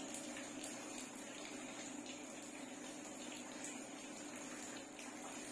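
Steady faint hiss with a low hum, under light scratching of a charcoal pencil on paper.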